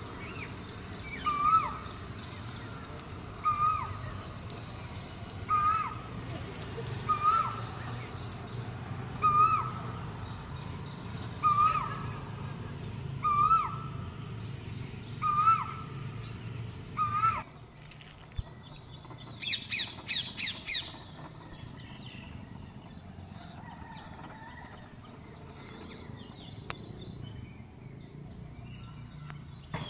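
Asian koel calling, one short rising-and-falling note repeated about every two seconds through the first half. After the calls stop, there is a brief run of rapid high chirps.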